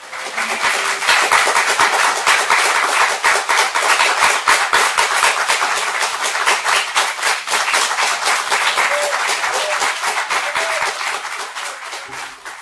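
Theatre audience applauding: dense, steady clapping that dies away near the end.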